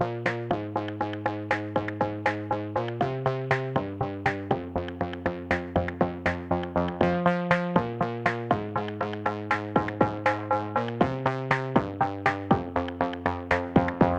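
Background music: electronic synth track with a steady drum-machine beat of about three to four hits a second over shifting sustained chords.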